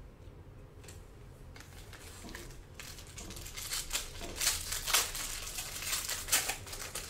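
Foil wrapper of a trading-card pack crinkling and tearing open, in a run of sharp crackles that starts about three seconds in.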